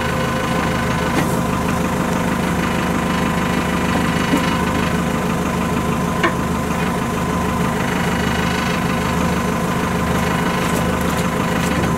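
TCM E830 wheel loader's diesel engine idling steadily, with a few short metallic clinks from work on the snow-plow mounting.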